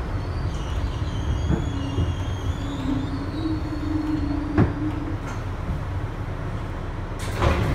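Bombardier-built R62A subway car rolling along elevated track, heard from inside the car: a steady rumble with wavering high-pitched wheel squeal in the first few seconds and a few sharp knocks from the rails. A brief hiss comes near the end.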